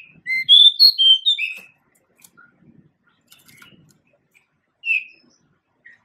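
Male pied bushchat (Saxicola caprata) singing: a short, quick phrase of clear whistled notes in the first second and a half, then a few faint ticks and a single note about five seconds in.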